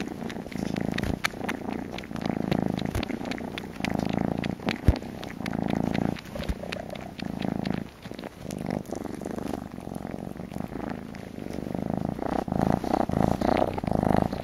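Kitten purring close to the microphone, the purr swelling and fading with each breath, with scattered small clicks and rustles over it.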